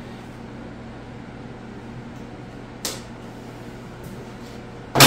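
Tack-welded steel frame being handled and set down: a small knock about three seconds in, then a loud metal clank near the end as it is put down on a folding workbench, over a steady low hum.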